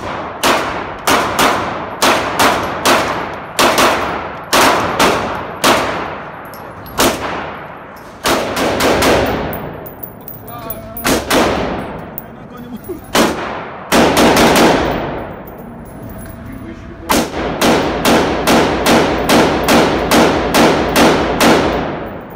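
Handgun shots fired over and over, each sharp crack followed by a long echo in the enclosed indoor range. The shots come in irregular strings, ending in a rapid run of about three a second near the end.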